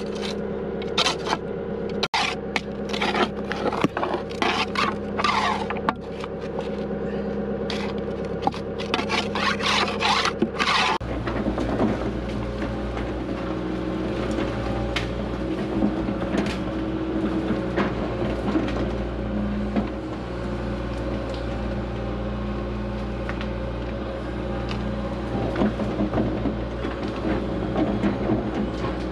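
John Deere 120 excavator running and travelling on its tracks. Over roughly the first eleven seconds sharp scraping and squealing bursts come from the tracks and undercarriage over the engine. After that the engine runs on steadily with only occasional clanks.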